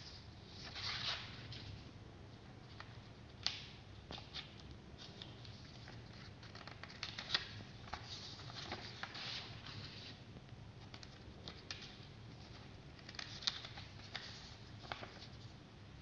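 A sheet of printer paper rustling and crinkling in the hands, in short scattered bursts with a few sharp crackles.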